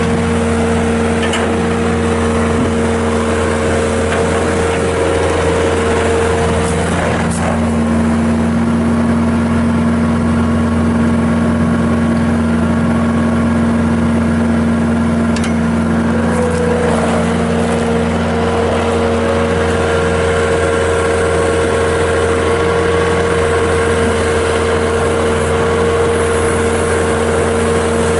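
Kubota V3307 four-cylinder turbo diesel of a Bobcat S650 skid steer running steadily, its pitch shifting slightly a couple of times, with a few brief knocks.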